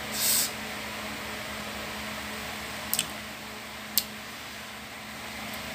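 A short breathy puff of air about a quarter second in from a person vaping on a pod device, then two small clicks about a second apart, over a steady low hum.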